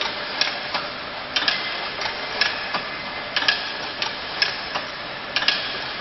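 Automatic crimped wire mesh weaving machine running: steady mechanical noise with a pair of sharp clacks about once a second, repeating evenly with each weaving cycle.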